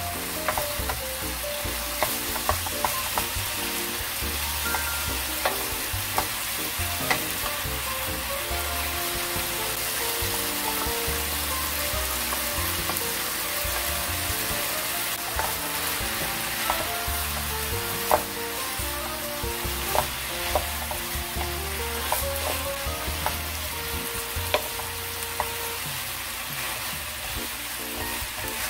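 Sliced pork shoulder in a chili-soy sauce sizzling in a nonstick frying pan as it is stir-fried with a wooden spatula, with scattered clacks of the spatula against the pan.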